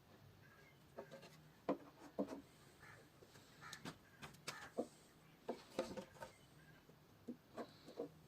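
Irregular light knocks, taps and scrapes of wood being handled and worked by hand.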